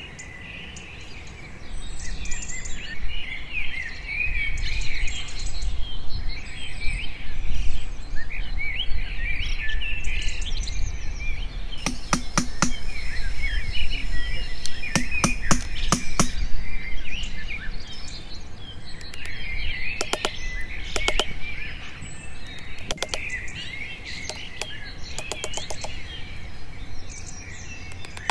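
Birds chirping and calling continuously over a low rumble. From about twelve seconds in come clusters of sharp knocks as a metal blade is struck into wood while carving a wooden gun stock.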